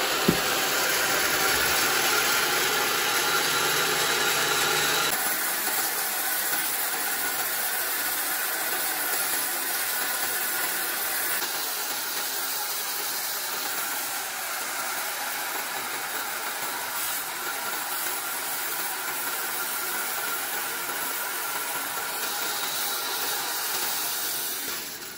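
Horizontal band sawmill with a 4 HP electric motor, running with its band blade cutting through a wood log. The cutting makes a steady hiss, with a faint steady tone under it. A short sharp knock comes just after the start, and the sound changes abruptly about five seconds in.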